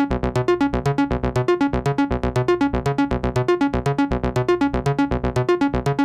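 Electronic dance music from a live hardware set: a fast, even run of repeated keyboard-like synth notes over a pulsing beat.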